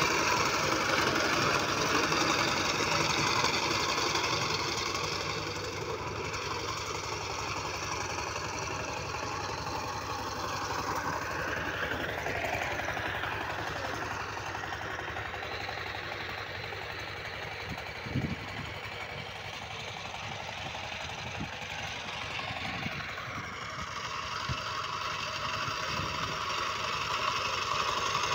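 The 12-horsepower single-cylinder diesel engine of a two-wheel power tiller running steadily under load while tilling. It fades as the tiller moves away and grows louder again near the end as it comes back.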